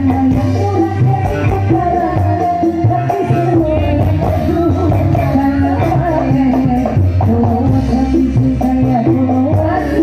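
Dangdut music from an orkes melayu band: singing over a bass line and steady percussion.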